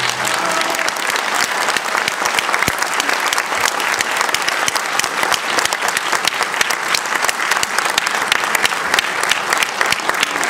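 Audience applauding, a dense steady clatter of many hands clapping, as the last music dies away at the very start.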